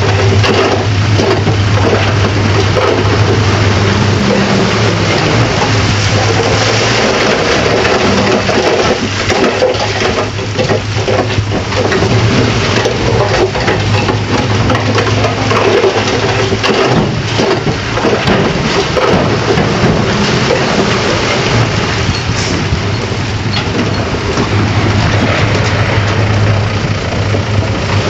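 Bulldozer's diesel engine running steadily under load, its low hum shifting now and then, with a constant din of scattered clicks and clatter.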